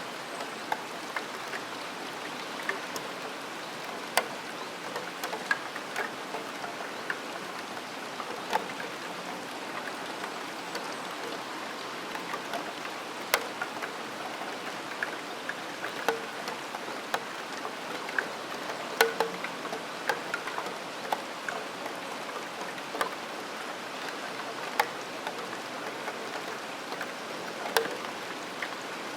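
Rain falling with a steady hiss, and irregular sharp taps of drops striking a steel window sill, some louder than others.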